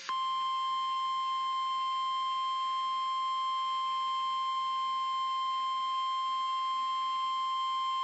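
NOAA Weather Radio 1050 Hz warning alert tone, sounded as part of the Required Weekly Test: a single steady tone held unbroken at an even level.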